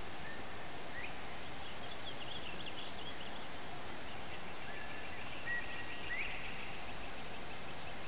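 Steady background hiss with faint bird calls over it: a few short whistled notes and chirps, one rising note about a second in, a warbling run a couple of seconds in, and more whistles with a rising sweep about six seconds in.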